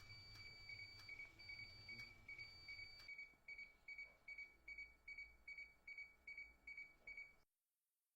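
Faint high electronic beeping: a thin tone that breaks into quick, even beeps about two and a half times a second, then cuts off suddenly.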